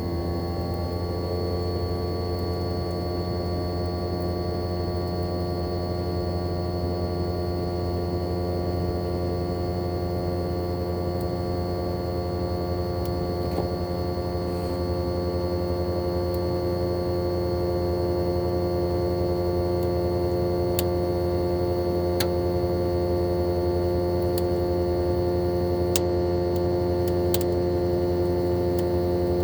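Daikin ARN22HS inverter outdoor unit running, its swing rotary compressor humming with a set of steady whining tones that climb a little at the start, and the whole sound growing steadily louder as the compressor speeds up. It is the typical sound of the unit accelerating back into heating after a defrost cycle. A few faint ticks come in the last ten seconds.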